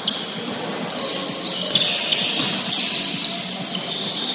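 Basketball game on a hardwood gym floor: sneakers squeak several times in short, high squeals, with the ball knocking as it bounces on the floor.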